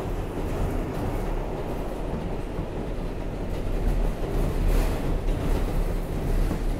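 R188 subway train running along the track, heard from inside the car: a steady low rumble of wheels and motors that gets a little louder about four seconds in, with a few faint clacks.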